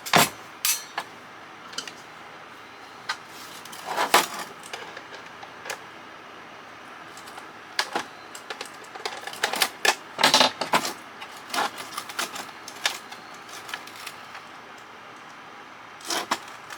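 Small metal screws and parts clicking and clattering as a CB radio's case is unscrewed and handled on a hard surface. There are scattered sharp clicks, with short clusters of louder clatter about four seconds in and again around ten seconds in.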